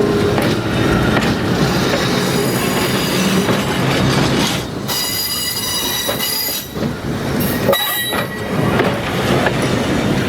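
Electric railcar running on the rails with steady running noise, its steel wheels squealing in high thin tones from about halfway through.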